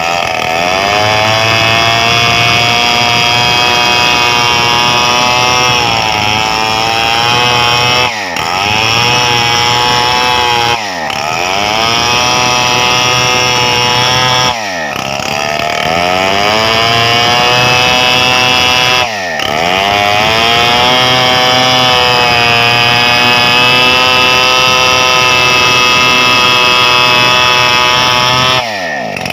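Stihl 070 two-stroke chainsaw running hard while cutting a wide gmelina plank. Its engine note is steady, but about five times the revs drop suddenly and then climb back up.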